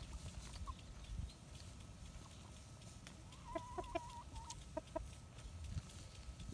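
Chicken clucking softly: a short wavering trill a little past the middle, then a few single clucks. Low wind rumble on the microphone underneath.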